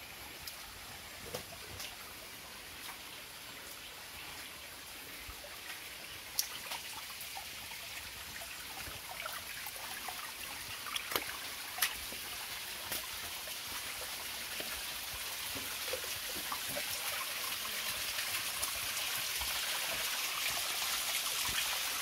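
Water trickling over stones in a shallow forest stream, with the splash of a thin waterfall growing steadily louder toward the end. A few sharp clicks stand out about a third and halfway through.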